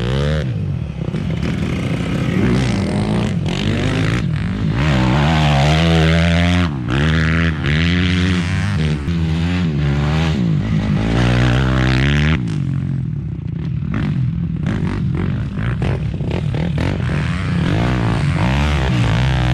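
Dirt bike engine being ridden, revving up and down over and over with the pitch rising and falling. About twelve seconds in it settles to a steadier, lower-pitched run with smaller revs.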